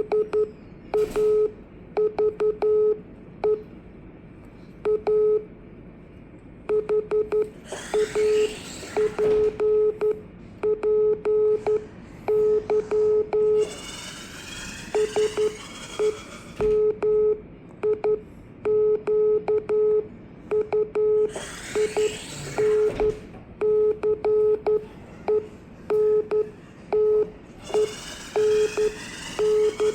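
Morse code (CW) sidetone: a single steady tone keyed on and off in dots and dashes, spelling out a greeting, with small clicks from the keying. A rushing noise swells up and fades away four times behind it.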